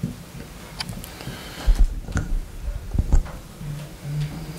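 Scattered clicks, knocks and shuffling from people moving into place around a podium, with heavier thumps about two and three seconds in.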